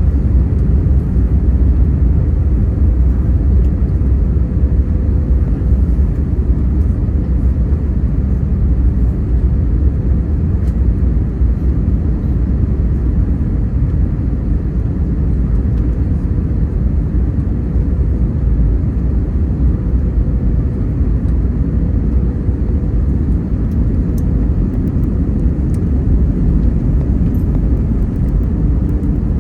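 Airbus A321neo cabin noise: a steady low rumble of engines and airflow, with a faint steady hum above it.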